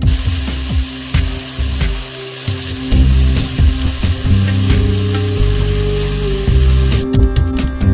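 Whole marinated chicken frying in hot oil in a pan on high heat, a steady sizzle over low background music; the sizzle cuts off about seven seconds in.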